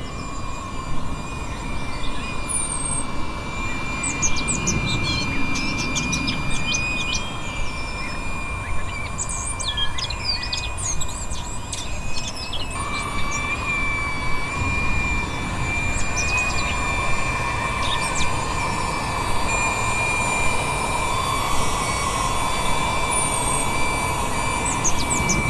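Bird chirps and calls come in scattered flurries, laid in as a sound effect. Under them runs a steady whine and hum, the kind of even motor tone an electric air pump gives while inflating.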